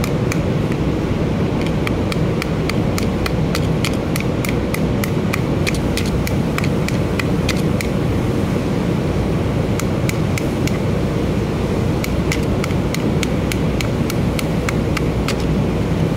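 A screwdriver clicking and scraping against the inside of a corroded power window motor's gear housing, with sharp irregular clicks a few times a second. A steady low rumble runs underneath.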